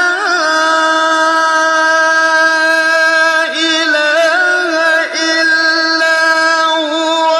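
A male reciter chanting the Quran in the drawn-out mujawwad style, holding long steady notes broken by ornamented melodic turns.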